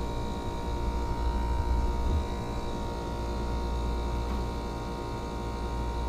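ClimateMaster geothermal heat pump running in heating mode: a steady hum from the compressor and blower, with a thin steady whine above it.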